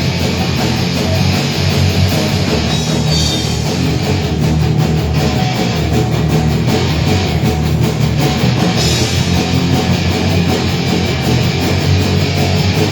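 A rock band playing live with distorted electric guitar, bass and drum kit in a heavy instrumental passage.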